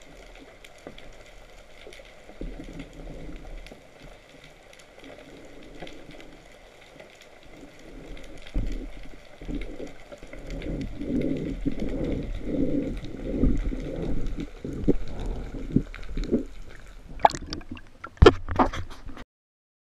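Underwater camera housing picking up muffled water movement. From about halfway it gets louder with low sloshing surges about twice a second, then sharp splashes and knocks near the end as the camera breaks the surface, before the sound cuts off.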